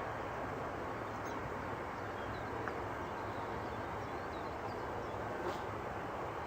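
Steady background hiss and rumble with a few faint, short high chirps in the middle.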